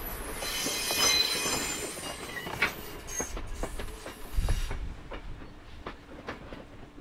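Passenger coaches rolling past on the track: their wheels squeal high at first, fading over the first couple of seconds, then click over rail joints, growing fainter as the train draws away. A brief low buffet of wind on the microphone comes about four and a half seconds in.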